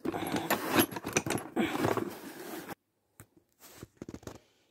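Cardboard box holding a pair of steel coil spring compressors being opened and handled: rustling and scraping with many small clicks, which cuts off abruptly about two and a half seconds in. A few faint clicks follow near the end.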